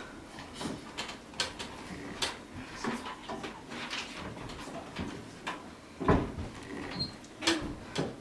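Scattered knocks, clicks and shuffling of people moving about on their feet and around a chair, with a louder thump about six seconds in.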